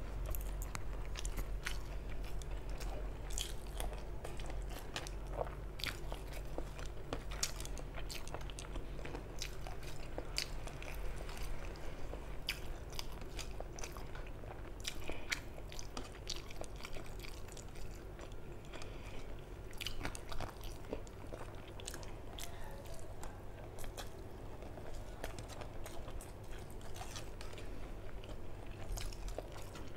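Close-up chewing and mouth sounds of a person eating rice and curry by hand, with many short crisp clicks and crunches.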